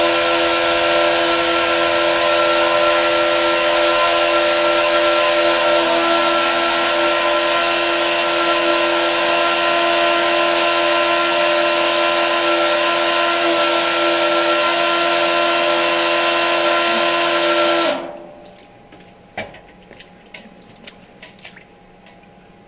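Small 12-volt electric water pump running, with several steady whining tones over the hiss of water spraying from a cone spray nozzle. It cuts off suddenly about 18 seconds in, leaving a few faint clicks and drips.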